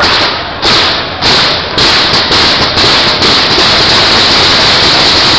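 Audience handclaps close to the microphone, sharp claps about twice a second at first, merging after about two seconds into continuous loud applause from the ringside crowd.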